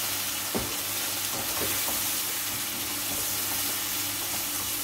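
Chicken, potatoes, tomatoes and green chillies sizzling steadily in oil in a non-stick wok as a slotted spatula stirs them, with a couple of soft knocks of the spatula about half a second and a second and a half in.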